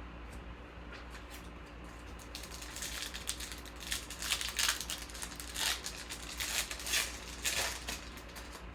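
Crinkling and rustling from a foil card-pack wrapper and cards being handled, in quick irregular bursts that start about two seconds in and grow louder. A faint steady hum lies underneath.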